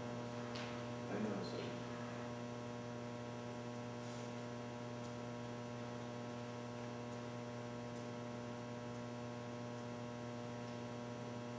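Steady electrical mains hum with several steady overtones, unchanging throughout.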